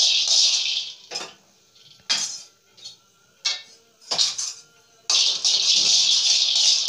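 Peanuts being stirred around a dry aluminium kadai while they roast, a scraping rattle against the metal. It comes in a long stroke, then several short ones, then runs on steadily from about five seconds in.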